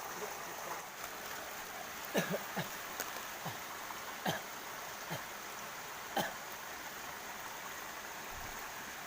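Steady rush of a small mountain stream below a waterfall. From about two seconds in, roughly seven short, sharp sounds that drop quickly in pitch come over the water noise, each lasting a fraction of a second.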